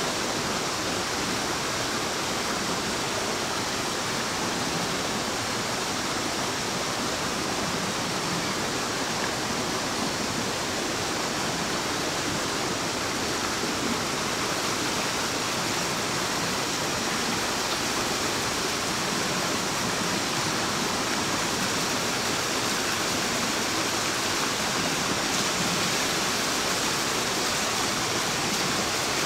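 Small waterfall spilling over rocks into a forest stream: a steady, even rush of falling water.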